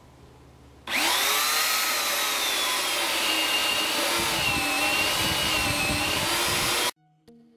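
Homelite 16-inch electric chainsaw starting up about a second in, its motor whine rising quickly, then running under load while ripping lengthwise through a blackwood log on a small chainsaw mill, the pitch wavering as the cut loads the motor. The sound cuts off suddenly about seven seconds in, and music starts near the end.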